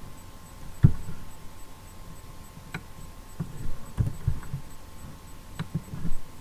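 Steady electrical hum, with a few scattered soft thumps and clicks from computer keyboard and mouse use on a desk. The loudest thump comes about a second in.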